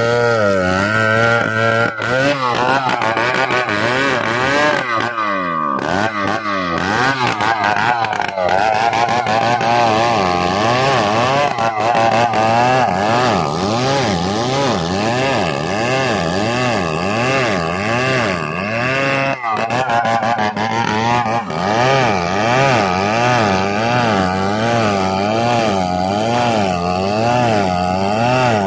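Two-stroke chainsaw running under load as it cuts into a thick tree trunk, its engine pitch wavering up and down about once a second. About five seconds in it bogs down and drops in pitch, then revs back up and keeps cutting.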